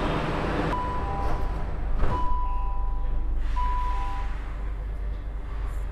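Metro train door-closing warning beeps, high and lower tones in turn, as the sliding doors shut with a knock about two seconds in, over the steady hum of the standing train.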